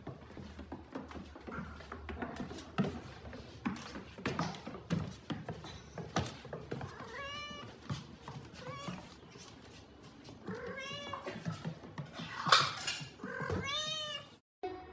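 A cat meowing about four times in the second half, each a drawn-out rising-and-falling meow, with a louder rough cry just before the last. Light knocks and rustles run underneath.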